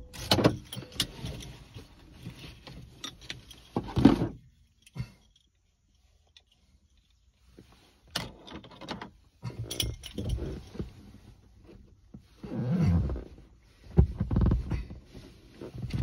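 Irregular rattling, clicking and knocking of small objects being handled inside a stationary car. Heavier knocks come about four seconds in and again about three quarters of the way through, with a couple of seconds of near silence in the middle.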